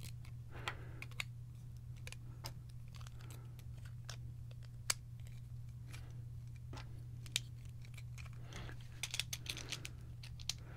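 Small plastic LEGO bricks and wheel pieces clicking and tapping as they are handled and pressed together, scattered single clicks with a quick flurry near the end, over a faint steady low hum.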